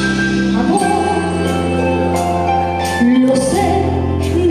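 Female singer performing a ballad live into a microphone over instrumental accompaniment, with long held notes.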